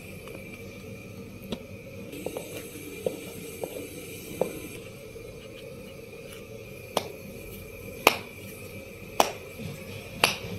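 Hands patting and working a ball of paratha dough over a plastic bowl of flour: irregular sharp pats and taps, a few soft ones in the first half and three louder ones about a second apart near the end. A faint steady high hum runs underneath.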